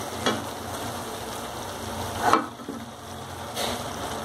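Onion-spice masala frying in oil in a non-stick kadhai, a steady sizzle, the masala cooked to the stage where its oil has separated. Two short knocks, one a moment in and a louder one about two seconds in, as stuffed brinjals are set into the pan.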